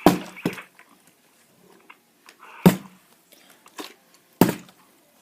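Plastic bottle being flipped and knocking down on a hard surface, four sharp knocks spread across a few seconds.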